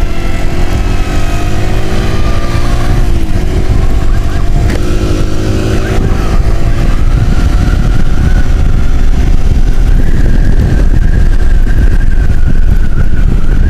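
Motorcycle riding along at speed, with a heavy low wind rumble on the microphone. Several steady tones drift slowly down in pitch over the first three seconds.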